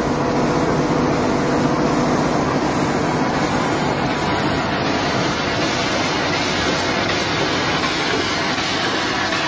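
Automatic plastic bottle cap assembling and slitting machine running, a steady even mechanical noise with a faint hum in the first few seconds.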